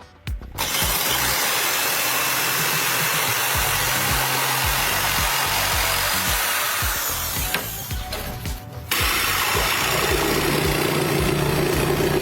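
A power tool running in two long stretches, with a break of about a second and a half about seven and a half seconds in, over background music with a steady beat.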